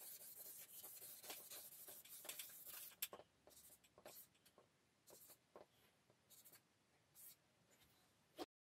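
Faint scratching of a felt-tip marker writing a word on a paper easel pad: steady scratching for about three seconds, then short separate strokes, with one short click near the end.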